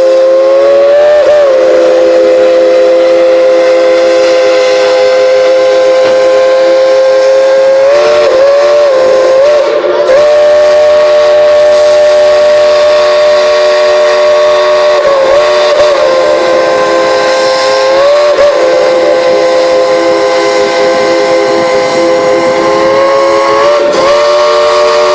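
Steam locomotive whistle played by the engineer: loud, with several tones sounding together as a chord, held almost without a break. Its pitch sags and wavers briefly every few seconds as the whistle is worked.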